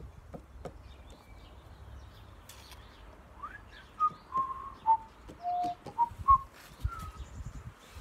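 A woman whistling a short, slow tune of separate held notes, starting about three and a half seconds in and stopping near the end.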